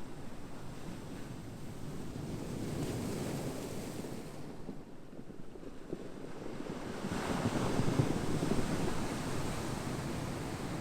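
Ocean waves washing in. There is a lull about five seconds in, then a louder wave surges up about seven seconds in and eases off.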